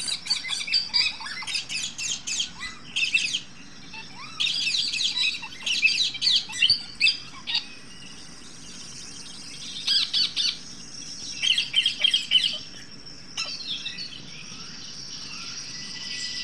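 Caged green parakeets chattering and screeching in quick runs of shrill calls. The runs come in several bursts, with quieter stretches between them, the longest quiet spell coming after the middle.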